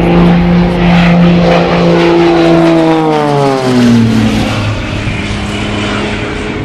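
Piston-engined propeller aircraft flying past, its engine note steady at first, then dropping sharply in pitch about three seconds in as it passes and draws away.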